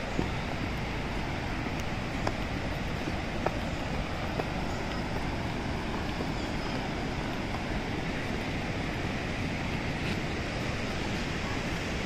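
Steady rushing roar of river water over rapids, with wind buffeting the microphone; a few light clicks, like footsteps on rock, stand out near the start.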